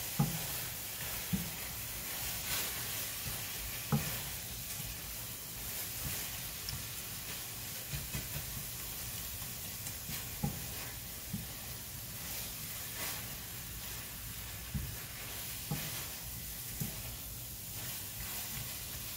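Chicken pieces sizzling as they fry in a pan, stirred with a spatula that knocks and scrapes against the pan now and then.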